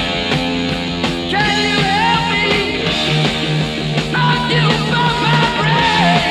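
Rock music with a steady beat, distorted guitars and bending guitar or vocal lines.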